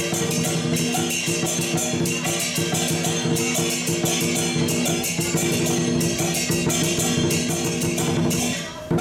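Dragon dance percussion: fast, dense drumming and cymbal strikes over steady ringing tones, dropping away briefly just before the end.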